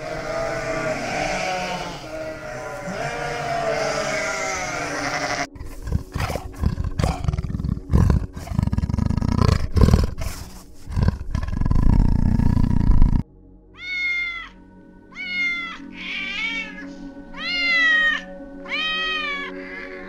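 Sheep bleating in long wavering calls, then a big cat growling in a run of loud rough calls from about five seconds in, then a domestic cat meowing about six times in the last seven seconds. Steady background music plays underneath.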